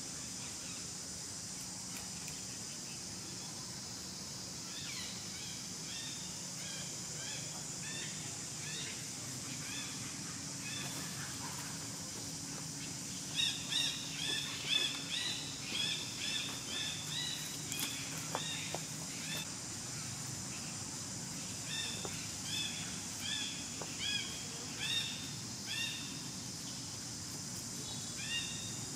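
Steady high insect drone, with three bouts of short, repeated chirping calls from an animal at about two a second, the middle bout the loudest.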